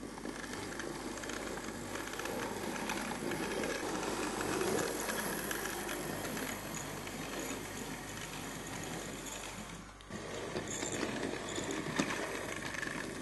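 Hornby OO gauge Princess Royal Class model steam locomotive running on DC power, its motor and gears making a steady mechanical whirr and its wheels rattling over the track. The running dips briefly about ten seconds in, then picks up again, and there is one sharp click near the end.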